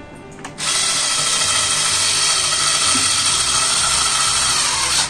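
A small handheld electric tool runs steadily for about four seconds, a loud hissing whir that cuts in about half a second in and cuts off abruptly near the end.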